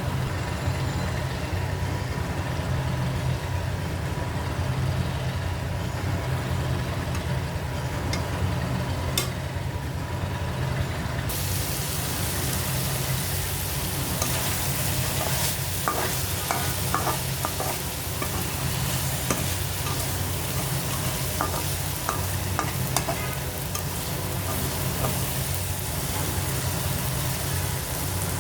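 Food frying in a pan, stirred with a spatula that knocks against the pan now and then. The sizzle grows suddenly louder about a third of the way in. A steady low hum runs underneath.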